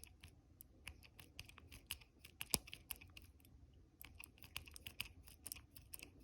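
Rapid, irregular light clicking and scratching of a tubular lock impressioning tool being pushed and twisted in a tubular lock, its pins working against the lock's pins, with one sharper click about two and a half seconds in. The lock does not open.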